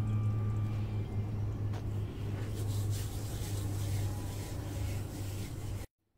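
A steady low hum, with a crackly rustle about halfway through as dried fenugreek leaves (kasuri methi) are crumbled over the pan of curry. The sound cuts off abruptly near the end.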